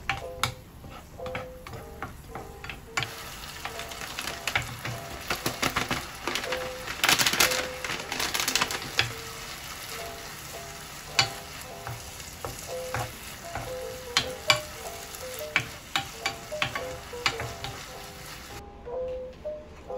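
Food sizzling as it fries in a pan, with sharp clicks of a utensil stirring and tapping against it. The sizzle starts about three seconds in and is loudest around seven to nine seconds in. Background music plays throughout.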